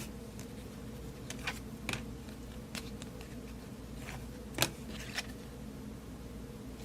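Baseball cards being handled and flipped through by hand: a few soft, scattered clicks and rustles, one a little louder just past the middle, over a steady low hum.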